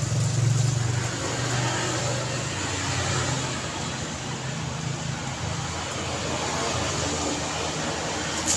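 Road traffic on a busy street, with vehicles passing and a steady wash of engine and tyre noise. A low engine hum from a nearby vehicle is strongest at the start and eases off after about a second.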